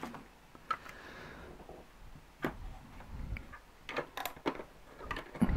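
Light clicks and knocks of a hard plastic Voltron lion toy being handled and set down on a tabletop, scattered and irregular, with several close together near the end.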